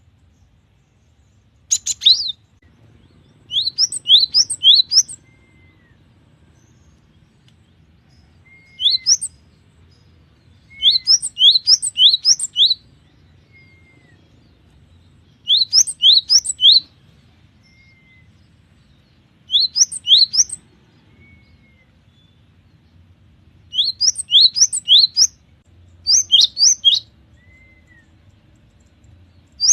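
Cinereous tit (gelatik batu) singing: short phrases of three to six quick, high, ringing notes, repeated every few seconds with brief pauses between them.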